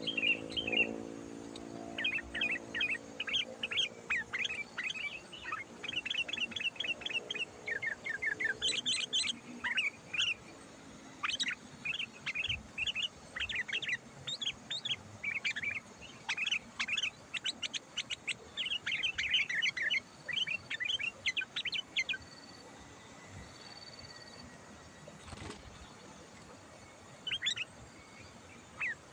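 Sooty-headed bulbul (kutilang) song: rapid runs of short chirpy notes, dense for about twenty seconds, then thinning to a few scattered calls near the end.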